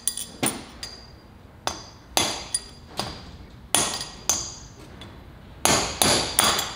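Hammer striking a steel punch set against a rear wheel bearing race in a Ford Super Duty hub, driving the race out: about a dozen sharp metallic blows with a bright ring, at uneven intervals of half a second to a second.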